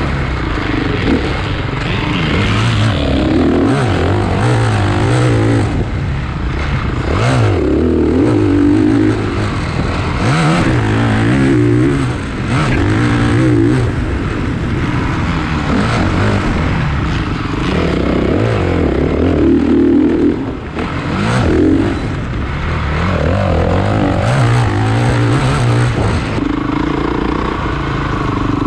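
Motocross dirt bike engines racing, revving up and dropping back over and over as the riders accelerate and back off around the track.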